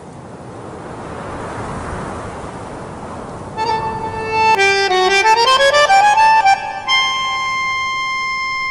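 Soundtrack music: a hiss swells for the first few seconds, then sustained instrument notes come in about three and a half seconds in, climb in a rising run, and settle on a long held chord.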